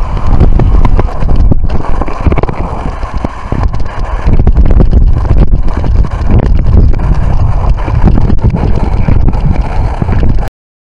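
Loud, uneven low rumbling from air or water buffeting the camera's microphone, which cuts off suddenly near the end.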